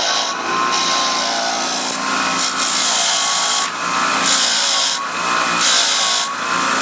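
A bench grinder's wire wheel spinning steadily with a rusty bolt pressed into it in repeated passes, a scratchy rasp swelling about five times as the wire bristles scour rust off the metal.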